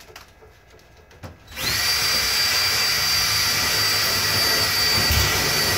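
Cordless power drill starting about a second and a half in and running steadily with a high whine, used while fixing a network switch into a wall-mounted enclosure.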